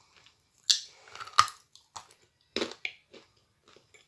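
Close-up crunching and chewing of dry edible clay (Astana 'Ideal' clay): a few sharp crunches as it is bitten and chewed, loudest in the first half.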